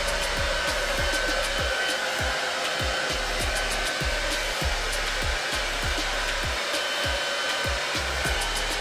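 Handheld hair dryer blowing steadily, a continuous rush of air with a faint high whine running through it.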